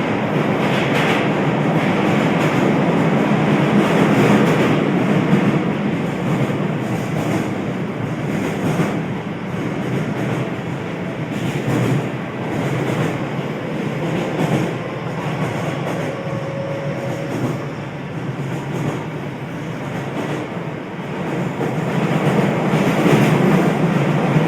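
Running noise inside a Keio new 5000 series commuter train car at speed: a steady rumble of wheels on rail with clicks over the rail joints, and a brief faint squeal about two-thirds of the way through.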